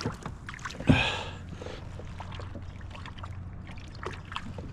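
A splash about a second in as a small northern pike goes back into the water from a kayak, followed by faint trickling and light ticks.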